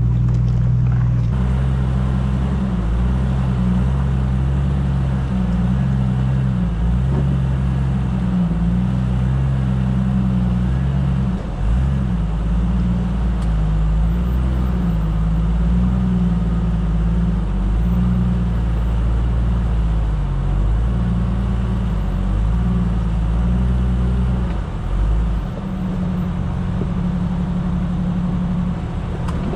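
Jeep engine running at low revs while crawling over a rocky trail, heard from on the vehicle: a steady low drone whose pitch rises and dips with the throttle, with brief changes about twelve seconds in and again near the end.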